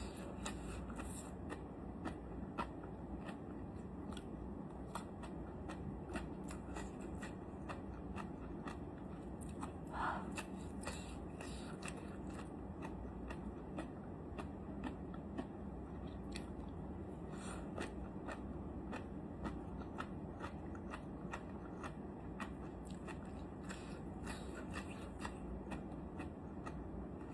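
Close-miked chewing of crunchy red-oil jellyfish head: many small crisp crunches and clicks, scattered irregularly throughout.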